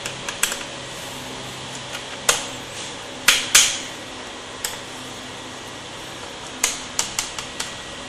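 Small screwdriver clicking and tapping against the screws and black plastic base of a Dell Inspiron 3521 laptop as the bottom panel's screws are undone: a scatter of sharp clicks, several in quick succession near the end, over a steady low hum.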